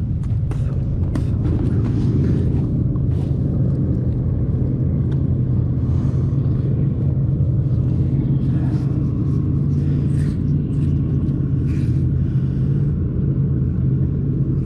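A steady low engine hum, with scattered light clicks and taps over it.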